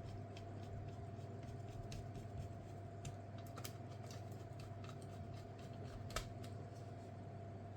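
Scattered light clicks and taps of small tools and laptop parts being handled during disassembly, over a steady low hum and a faint steady tone. The sharpest click comes about six seconds in.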